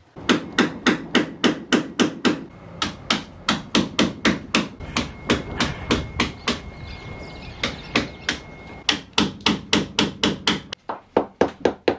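Hammer blows on a steel chisel, quick and regular at about three to four a second with a few short pauses, chiselling a small built-in safe out of a sailboat's bilge.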